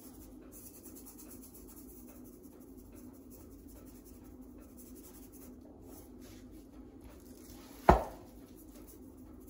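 Dry seasoning rub shaken from a small metal tin, pattering faintly onto a raw pork butt. Near the end comes a single dull thump as the roast is turned over and set down on the wooden cutting board.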